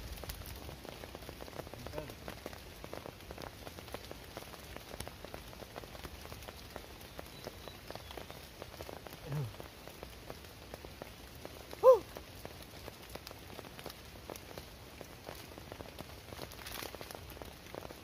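Steady rain falling on the forest and the tarp shelter, a constant hiss dotted with many small drop ticks. A single short pitched sound, like a brief voice or call, stands out loudest about two-thirds of the way through.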